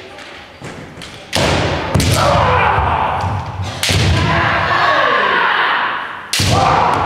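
Kendo practice: about four loud, drawn-out kiai shouts, each starting on a sharp impact from a bamboo shinai strike and a stamping foot on the wooden floor. Fainter shinai clacks come before the first shout.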